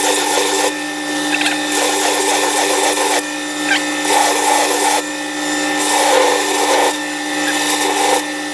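Belt grinder motor running with a steady hum while the cast iron horn of a small anvil is ground on the belt in repeated passes, the rough grinding noise coming and going about once a second.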